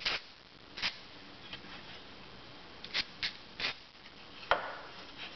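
Several short hissing sprays of aerosol brake parts cleaner from a straw nozzle onto a carburetor float bowl. A single sharp click sounds near the end.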